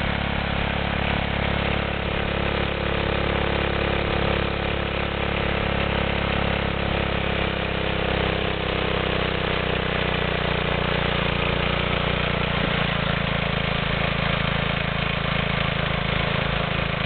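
Single-cylinder 3 hp Briggs & Stratton lawnmower engine on a homemade ride-on cart, running steadily at full throttle through a short open exhaust pipe.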